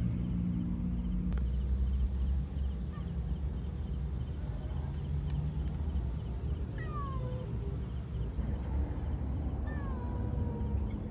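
A cat meowing twice in the second half, each meow falling in pitch and the last one drawn out longer, over a steady low rumble.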